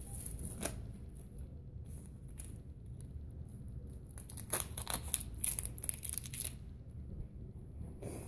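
Plastic wrap and sticky tape crinkling and tearing while being handled on a homemade bald cap, in scattered crackles that come thickest a little past the middle.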